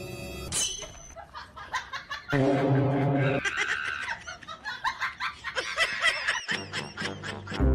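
A puppy's high-pitched squeaky calls, several in quick succession near the end, with a lower held tone about two and a half seconds in.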